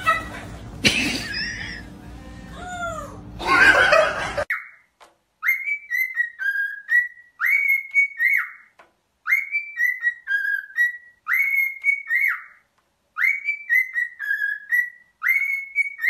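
A cockatiel whistling a short tune of several notes and repeating it over and over, about once every two seconds. Before it, for the first four seconds or so, a parrot gives giggling, laugh-like calls, with a loud burst of noise near the end of that stretch.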